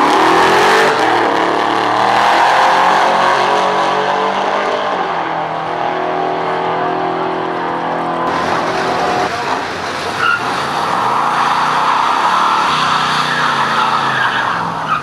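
Supercharged drag car launching hard and accelerating down the strip, its engine note rising and then fading as it gets further away. After a cut, another car does a burnout, tyres squealing over its revving engine.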